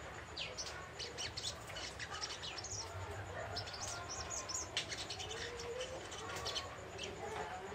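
Young spiderhunter (sogok ontong) twittering rapidly: a stream of short, high-pitched chirps and trills in quick succession, the chattering that keepers call 'ngriwik'. Lower wavering calls sound underneath.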